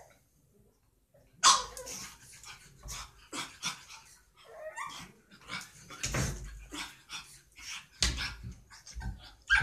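Pug puppy barking in short, irregular yaps, the first and loudest about a second and a half in after a near-silent start.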